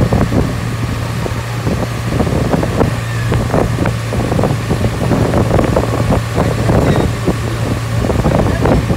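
A vehicle driving along with its engine running as a steady low hum, and wind buffeting the microphone in irregular gusts.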